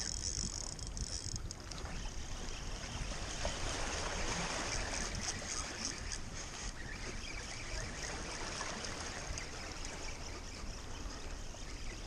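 Small waves washing and splashing against jetty rocks, with wind rumbling on the microphone. A high hiss stops about a second in.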